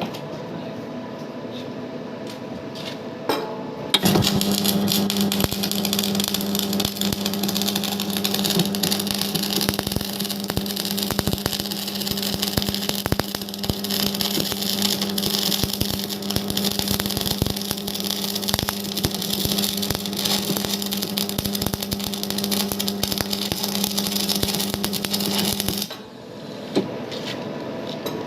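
Electric arc welding: the arc strikes about four seconds in and crackles and sizzles with a steady hum for about twenty seconds, then breaks off. Before and after it, only a quieter steady machine hum.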